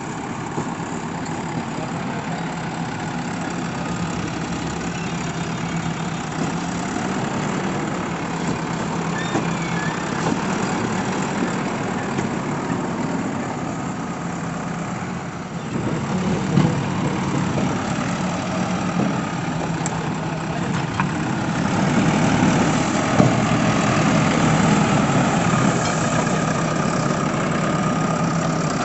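JCB 3DX backhoe loader's diesel engine running steadily, getting louder about halfway through and again a few seconds later as the machine works.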